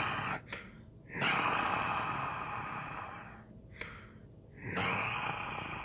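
A person breathing heavily through the hand cupped over their mouth and nose: a short sharp breath at the start, then a long exhale about a second in and another near the end.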